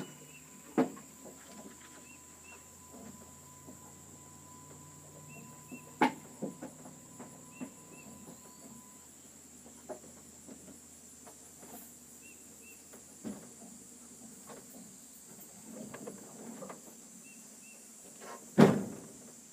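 Scattered sharp knocks and clicks over a quiet background, the loudest near the end. Faint short chirps come in pairs every few seconds.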